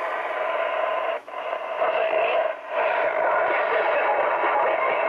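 1940 Philco 40-180 tube radio playing through its speaker: hissy, distorted, narrow-sounding audio with two brief dropouts, about a second in and again near three seconds. The freshly repaired set plays, but it doesn't sound good.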